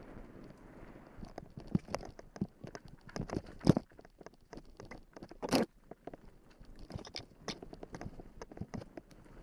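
Bicycle clattering and rattling as it rides fast down a stony dirt path, tyres crunching over gravel, with a run of sharp irregular knocks from bumps; two jolts stand out, the loudest about a third of the way in and another about halfway. Some wind noise on the microphone in the first second.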